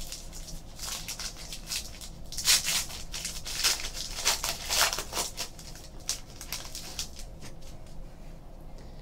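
A stack of trading cards being handled and sorted by hand: card stock sliding and flicking against itself in soft rustles and light clicks, busiest a few seconds in.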